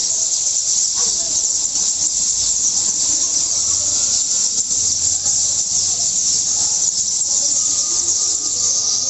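A flock of sparrows chirping all at once in a dense, continuous high-pitched chatter.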